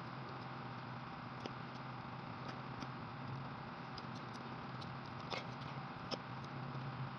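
Metal fork and spoon clicking and scraping against a plate now and then, with chewing, over a steady low hum.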